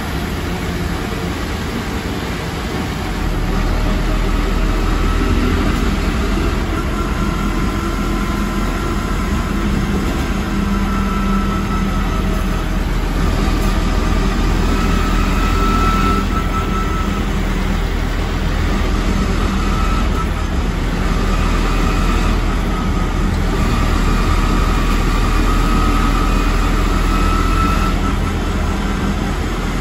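ZF Ecomat IV 6HP504C automatic gearbox of a Scania K230UB bus, heard through an open floor hatch over the drivetrain, whining over the rumble of the 9.3 L Scania diesel. The rumble grows about three seconds in, and the gearbox whine rises in pitch and breaks off several times as the bus accelerates through the gears.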